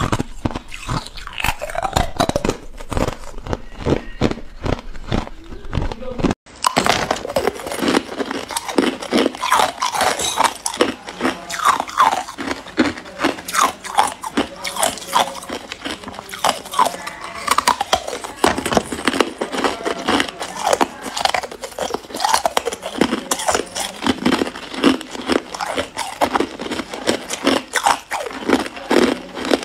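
Thin ice being bitten and chewed close to the microphone: crisp crunching and crackling. For the first six seconds the crunches come fast and evenly, about three a second; after a brief break they come more irregularly.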